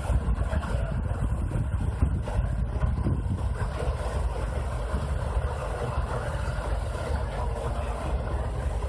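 Ponsse Buffalo forwarder's diesel engine running steadily, with wind buffeting the microphone.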